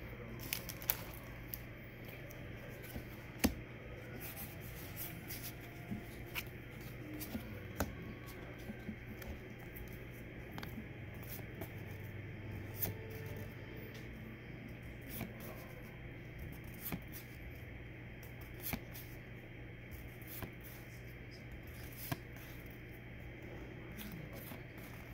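Pokémon trading cards being flipped through by hand one after another: quiet, scattered clicks and slides of card stock over a steady low hum.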